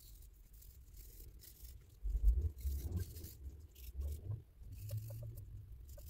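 Sandpaper rubbed by hand over cured epoxy putty on a pocketknife's plastic scale, in short scratchy strokes that bring the filler down flush with the scale. From about two seconds in, dull low knocks and rumble of handling are the loudest part.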